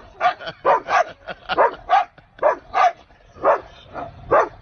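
Siberian husky barking, about ten short pitched barks in quick succession, two or three a second.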